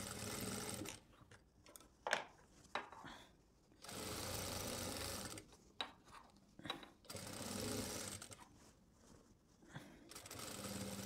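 Industrial single-needle lockstitch sewing machine stitching in about four short runs of a second or so each, with quiet pauses between them: a collar band being sewn around its curve bit by bit. A few light clicks fall in the pauses.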